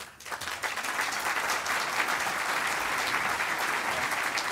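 Audience applauding, starting suddenly and swelling within the first second, then holding steady.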